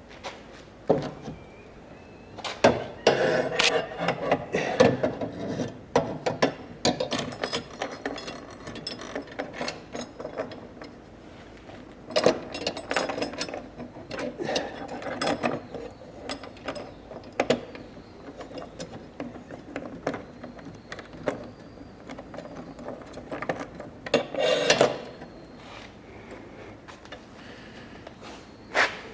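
Hand tools working on metal fittings: irregular ratchet-like clicking and scraping in several spells, with a few sharp knocks.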